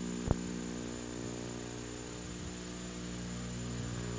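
Steady electrical mains hum with a thin high whine, the background noise of an old film soundtrack. A single sharp click comes about a third of a second in.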